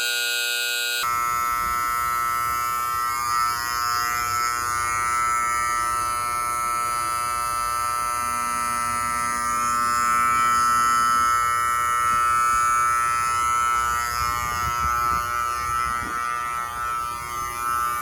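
Wheelock 31T-115 vibrating fire alarm horn buzzing continuously, sounding for a sprinkler alarm test. Its tone shifts slightly about a second in, then holds steady.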